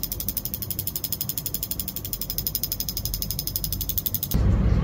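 A 24 V truck diesel fuel injector's solenoid clicking rapidly and evenly as a tester pulses it open and shut. About four seconds in the clicking stops abruptly and a louder low rumble takes over.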